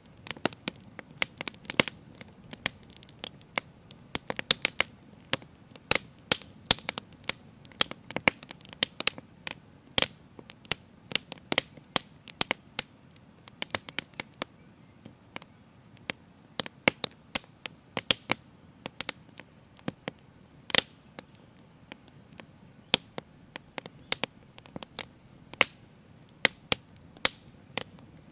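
Open fire crackling: irregular sharp pops and snaps, a few a second, over a soft low rush of flame, with a couple of louder snaps in the middle.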